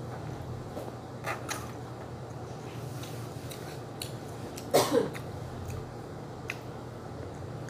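Close mouth sounds of someone eating a snack: soft clicks and chewing, with one short, louder throat noise about five seconds in, over a steady low hum.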